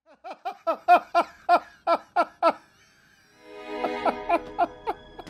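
A man laughing in a string of about ten short, jerky 'ha' bursts, each dropping in pitch. Then a sustained music chord swells in, with a line of short notes over it.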